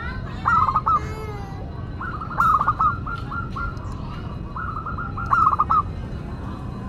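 Zebra dove (perkutut) cooing: three phrases of quick, rolling coo notes, each about a second long, over a steady low background rumble.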